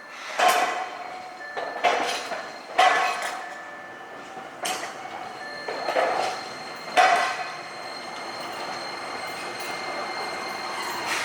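Toden Arakawa Line streetcar running slowly, its wheels clanking over points and rail joints in six irregular metallic strikes over about seven seconds, each ringing briefly, then a steadier running sound.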